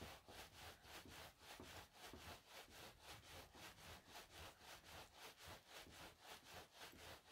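Faint, rhythmic rubbing of a towel-wrapped roll being pushed back and forth under the palms on a tabletop, about four strokes a second. Inside the roll are wet felt, bubble wrap and a bamboo mat around pipe insulation, and the rolling is the stage that makes the wool shrink.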